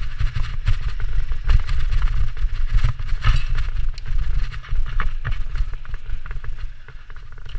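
Mountain bike riding fast down a dirt singletrack, its tyres rolling over packed dirt and leaf litter with constant irregular rattling and clicking from the bike over the bumps, over a steady low rumble.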